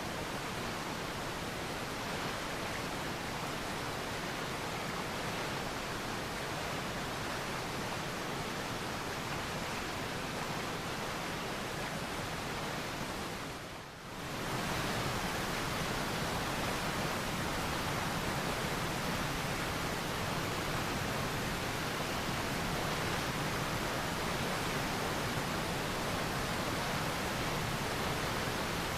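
A steady rushing noise, even across low and high pitches, that drops out for a moment about halfway through and comes back slightly louder.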